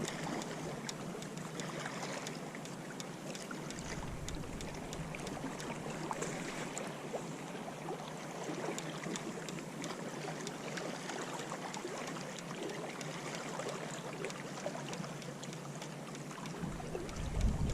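Steady wash of water lapping along the shore, with faint scattered clicks.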